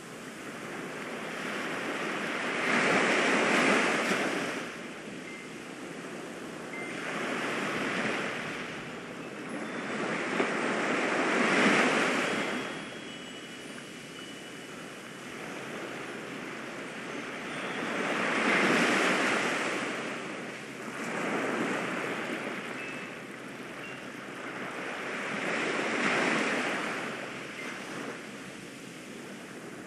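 Ocean surf washing in and drawing back in slow swells, six of them, every four to seven seconds, with a few faint wind-chime tones.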